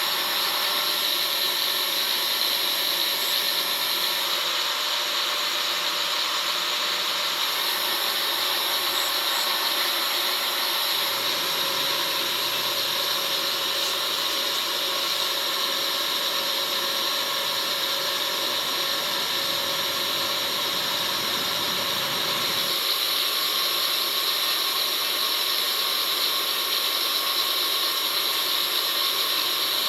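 Stick arc welding: the electric arc burning steadily with an even hiss.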